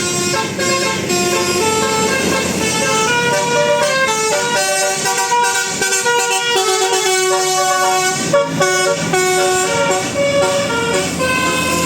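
A bus's 'telolet' horn, a bank of electrically switched air horns, playing a fast tune of short notes that step from pitch to pitch.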